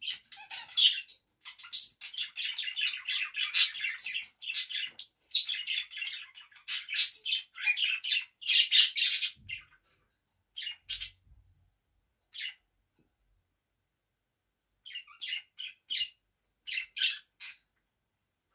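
Budgerigar warbling and chattering: a fast, busy stream of high chirps and squawks for about the first nine seconds, then a few short chirps with pauses and a last quick flurry near the end.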